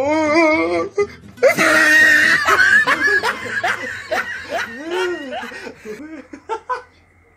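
Two men laughing hard together, with a wobbling, wailing laugh at the start and then loud overlapping laughter that dies away over the last couple of seconds.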